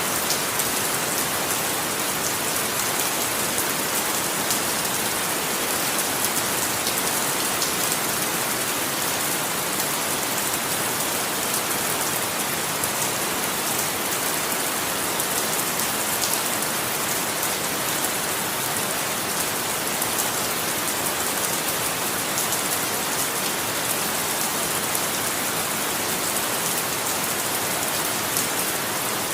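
Steady rain falling, an even hiss with fine patter of drops, brightest in the treble and unchanging throughout.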